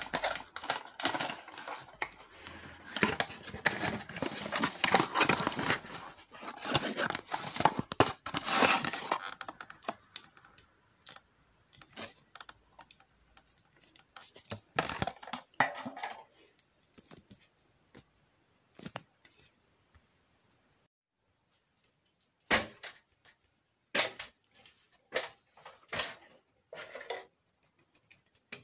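Cardboard bulb box being opened and its packaging torn and rustled, a dense crackling for about the first ten seconds. After that, scattered short clicks and scrapes of handling.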